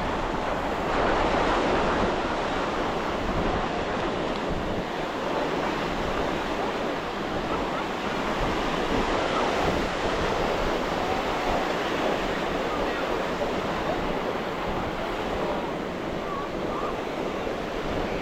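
Ocean surf breaking and washing on the beach in a steady rush, with wind buffeting the microphone.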